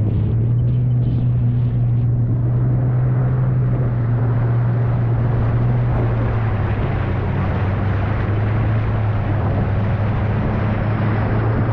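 Jet ski engine running at a steady cruising speed over a rushing noise of wind and water. The engine note drops slightly about six seconds in.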